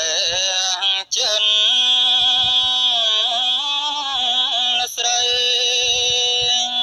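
A voice singing in long, drawn-out notes with a wavering, sliding pitch. It breaks off briefly about a second in and again near five seconds.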